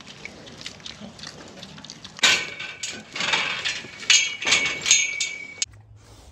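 Pigs moving around in a pen of metal gates and sheet metal: a couple of seconds in comes loud clanging and rattling with a high, steady squeal over it, ending abruptly just before the end.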